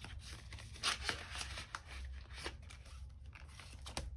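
Paper banknotes being handled: a stack of cash rustling, with a series of short, crisp flicks and crinkles.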